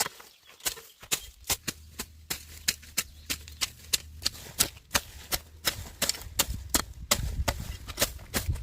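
A quick, irregular series of sharp clicks and knocks, about three or four a second, over a low rumble that starts about a second in and gets stronger near the end.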